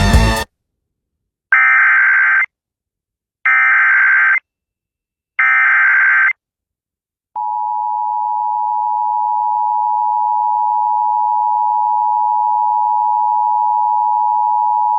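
Emergency Alert System tones: three short, identical bursts of screechy SAME header data, about two seconds apart, then after a brief gap the steady two-tone EAS attention signal comes in and holds, introducing a severe thunderstorm warning.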